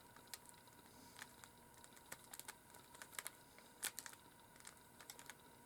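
Faint, irregular clicks of a Rubik's Cube's plastic layers being twisted by hand.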